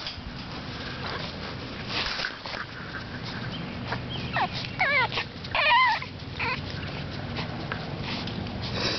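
Seven-week-old Boston Terrier puppy whimpering: a few high, wavering whines about four to six seconds in, the loudest near the six-second mark.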